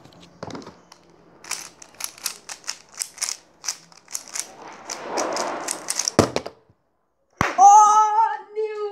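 A 3x3 speed cube being turned quickly by hand: a rapid run of plastic clicks. Near the end come two sharp knocks, then a person's voice holding a long note.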